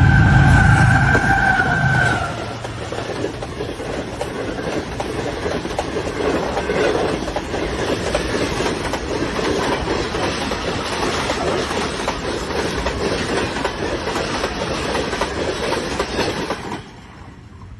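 Train running on the track: a dense rumble with many rapid clicks from the wheels, cutting off abruptly near the end. For about the first two seconds a loud steady tone sounds over a deep rumble.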